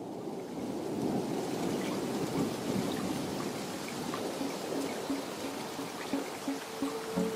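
Intro of an electronic drumstep track: a rain-and-thunder-like noise bed fades in, and short repeating low synth notes enter about halfway through and grow louder, with a held note joining near the end.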